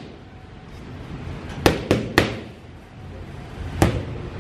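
Boxing gloves smacking into focus mitts: a quick three-punch combination about a second and a half in, then a single punch near the end.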